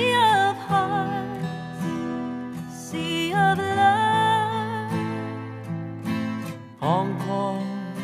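A woman singing a slow ballad over acoustic guitar accompaniment. Near the end, a man's voice comes in with the next line.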